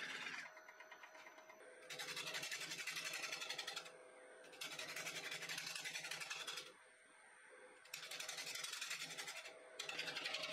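Wood lathe running while a turning tool cuts the inside of a spinning wooden bowl, throwing shavings. There are about three cutting passes of a couple of seconds each, a dry hiss with a fast ticking from the spinning work. Short pauses between the passes leave only the lathe's steady motor hum.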